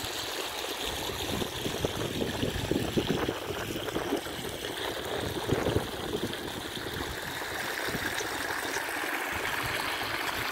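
Floodwater running steadily across waterlogged fields and spilling through a gap in an earthen field ridge, a continuous trickling flow.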